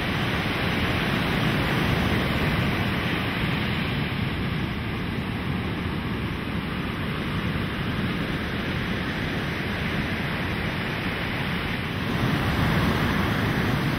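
Steady rushing noise of ocean surf breaking, a little louder from about twelve seconds in.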